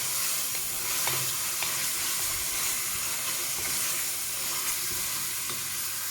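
Pepper frying in hot oil in a pot: a steady sizzle, with a few light ticks of a utensil stirring it.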